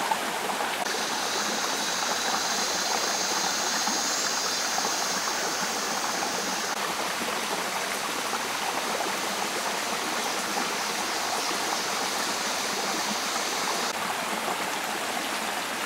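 A river rushing steadily. From about a second in until near the end, a high, steady shrill note sits over it.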